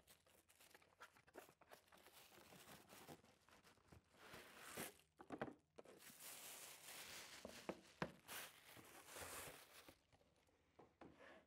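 Faint packaging handling: a cardboard box opened and plastic wrap rustling and crinkling, with a few light clicks and knocks, busiest in the second half.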